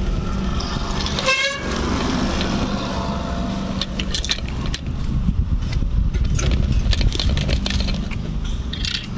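Bicycle ride noise heard from a handlebar-mounted phone: a continuous low rumble from wind on the microphone and tyres on the road, with frequent small clicks and rattles. About a second in, a brief wavering high tone sounds.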